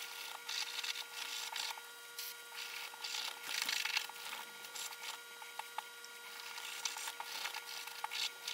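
Toothbrush bristles scrubbing the solvent-wet slide of an old Stevens 820B shotgun, in short irregular strokes with a few light clicks of the metal part.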